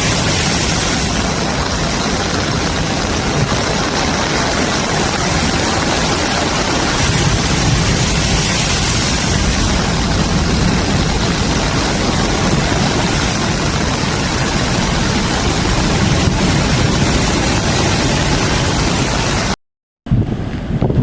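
Typhoon-force wind blowing hard over the microphone, a loud steady rushing noise, broken off for a moment near the end.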